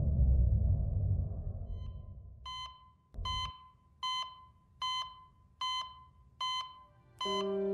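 A series of about seven short electronic beeps, evenly spaced a little under a second apart, starting faint and then steady, after a low rumble fades out over the first two seconds.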